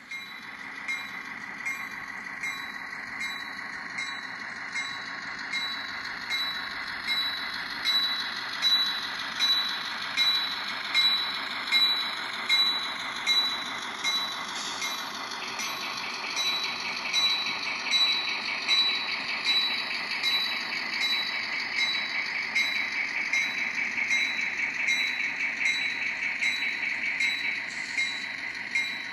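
N scale model freight train running past: a steady high whine from the locomotive, with a regular clicking of the wheels over the track a little faster than once a second.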